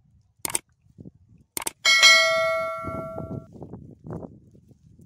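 Subscribe-button sound effect: two mouse clicks, then a bright notification-bell ding that rings out and fades over about a second and a half. Faint rustling underneath.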